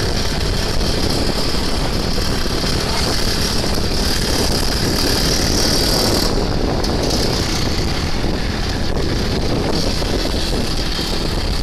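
Kawasaki KRR 150 two-stroke trail motorcycle engine running steadily while being ridden, with wind on the microphone.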